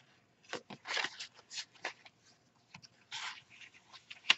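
Paper rustling and sliding as the pages, tags and cardstock inserts of a handmade junk journal are handled and turned, in short irregular bursts, with a sharp tap near the end.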